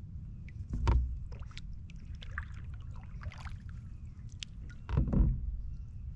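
Knocks and handling sounds on a small fishing boat: a steady low rumble with two heavy thumps about four seconds apart, and light clicks and taps between them.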